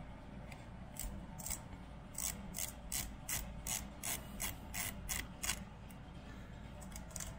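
Sharp ratcheting clicks, about two or three a second, as a muzzle device (the Oppressor) is twisted by hand on an AR-15 carbine's barrel; they stop for a moment and two more come near the end.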